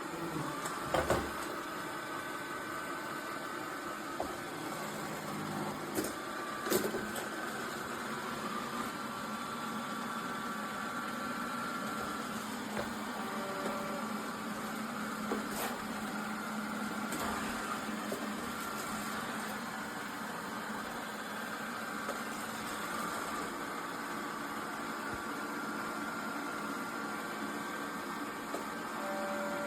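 Roborock Q7 L5 robot vacuum running a cleaning pass: a steady motor and brush hum whose pitch wavers, with a few sharp knocks, the loudest about a second in and near seven seconds in.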